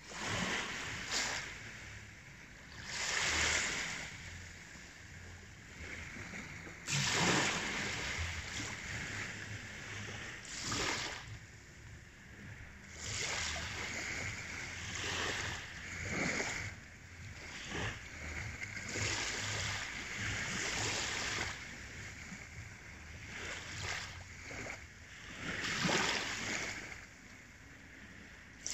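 Small waves lapping onto a sandy beach, each wash swelling and fading every few seconds.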